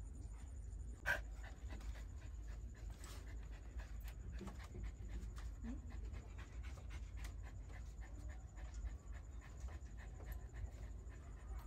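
Siberian husky panting, with one sharp click about a second in.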